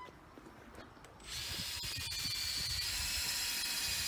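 Cordless drill starting up about a second in and running steadily with a high whine as it bores a hole through the steel base angle.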